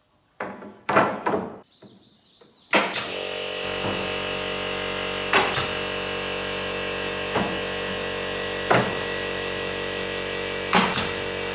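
A few knocks, then a woodworking power tool's motor starts about three seconds in and runs steadily, with a sharp knock every couple of seconds.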